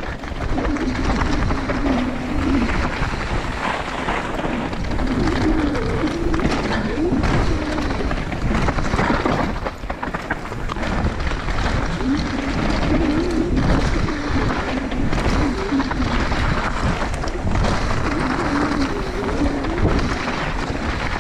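Downhill mountain bike running fast over a dirt trail: steady tyre roar and rattle of the bike with wind on the microphone, and a faint wavering hum under it.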